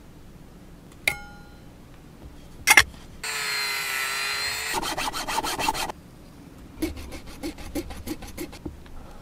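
A couple of sharp knocks. A small rotary tool then runs with a steady whine and grinds a 3D-pen plastic part with its sanding drum in quick strokes. Near the end come scraping strokes of a fine hand tool on the plastic part, about three a second.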